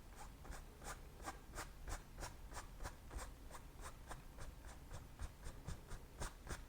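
A 2-inch brush stroking lightly back and forth across wet oil paint on canvas, blending it smooth: soft, even swishes at about three a second.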